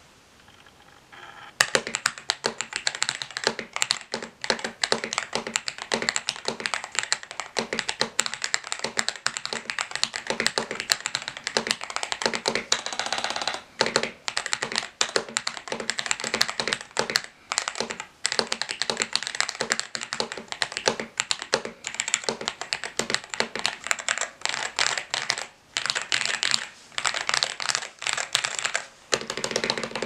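Fast typing on a custom mechanical keyboard with lubed Akko Radiant Red linear switches in an aluminium-plated Tester68 case, dampened with foam, fabric, cotton and tape mods: a dense stream of keystroke clacks with a few brief pauses. It starts about a second and a half in.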